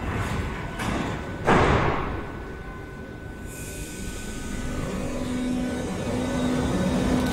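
Berlin U-Bahn class H train's sliding doors closing with a loud thump about a second and a half in, then a hiss of air. The train starts off with a steady hum and a rising whine from its electric drive.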